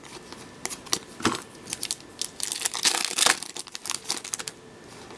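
Foil wrapper of an Upper Deck hockey card pack crinkling as it is handled, in irregular crackles that are densest about halfway through.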